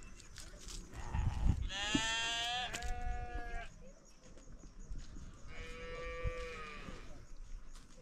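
A calf mooing twice in a fairly high, drawn-out call: a longer call of about two seconds, then a shorter one later on. A low rumble comes just before the first call.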